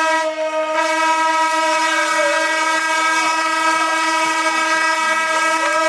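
Start horn sounding for a race start, one long unbroken blast with a steady, buzzing, many-overtoned tone, with fainter sliding whistle or horn notes over it.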